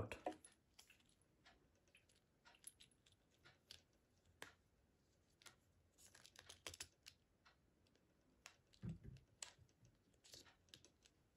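Faint, scattered clicks and rubbing of a new resin watch band and its metal buckle being fastened around a wrist, with a soft low thud about nine seconds in.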